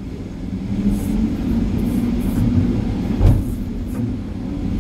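Hydraulic excavator's diesel engine working under load, heard from inside the operator's cab. It grows louder over the first second, and there is a heavy thud a little over three seconds in.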